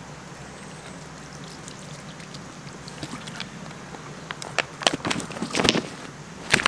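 Water poured from a plastic bottle, a quiet steady splashing, followed in the second half by a string of sharp crackles and clicks as the plastic bottle is handled.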